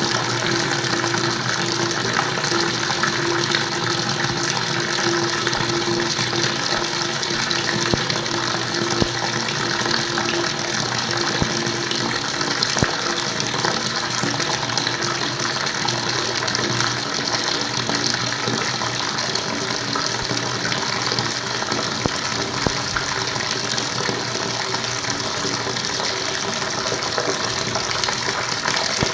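Water flowing and gushing in a steady, unbroken stream, with a low hum underneath.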